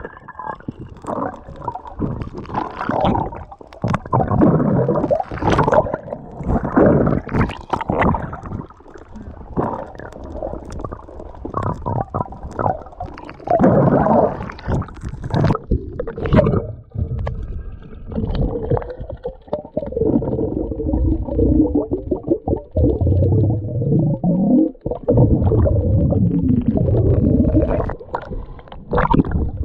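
Muffled water noise picked up by a camera held underwater: gurgling and sloshing around the housing with frequent bumps and knocks, and a steady low hum through the second half.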